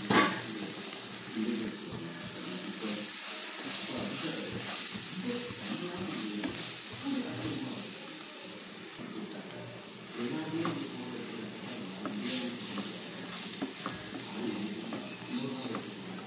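Chopped onion, grated coconut and green chillies sizzling in hot oil in a non-stick frying pan while a wooden spatula stirs and scrapes them around as they sauté. A brief knock comes right at the start.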